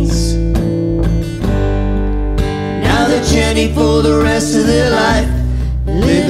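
Acoustic guitar strummed over a steady electric bass line, with a man and a woman singing together. The voices drop out for about two seconds near the start, leaving the guitar and bass, then come back in.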